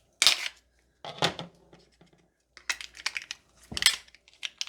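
Sealed plastic slime tub being worked open by hand: a series of short plastic crackles and snaps with pauses between them, the container being hard to open.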